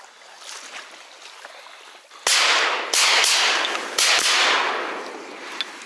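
Shotgun shots fired at a flying duck: a quick series of loud cracks over about two seconds, starting a bit over two seconds in, each trailing off in a long echo.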